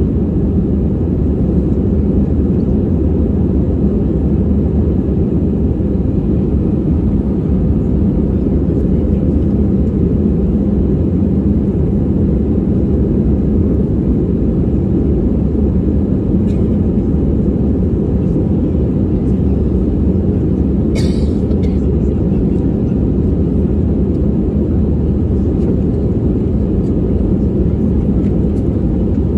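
Airbus A320-200 in the climb after takeoff, heard from a window seat inside the cabin: the engines and rushing air make a steady low rumble. A brief sharp click sounds about two-thirds of the way through.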